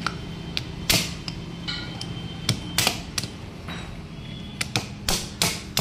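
Mallet striking the cylinder head of a TVS Victor engine to knock a tight part free. A few single blows come at uneven intervals, then a quicker run of blows near the end.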